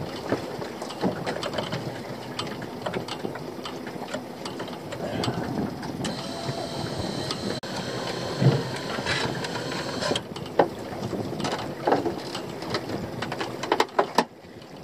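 Boat's pot hauler turning as a crab pot is hauled up from the seabed, a steady mechanical clatter with scattered knocks. A high whine runs from about six to ten seconds in.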